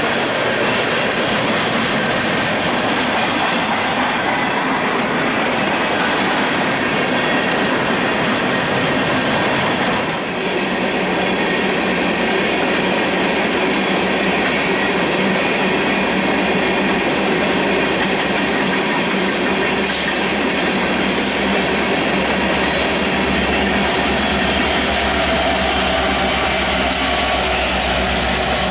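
Slow-moving loaded coal train's steel hopper cars rolling past, with wheels clicking on the rails and a thin high wheel squeal near the end. A low diesel rumble builds in the second half as the rear locomotive draws near.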